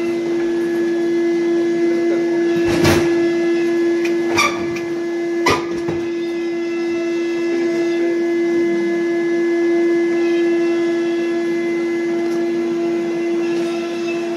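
A loud, steady pitched tone with overtones, held unbroken throughout, like a horn or alarm drone. A few sharp knocks sound over it, about three, four and a half, and five and a half seconds in.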